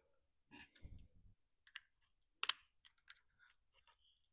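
Faint, scattered clicks and taps of small plastic parts as a small RC car's plastic chassis is handled and pried at with a screwdriver to work the electronics cover loose, the sharpest click about two and a half seconds in.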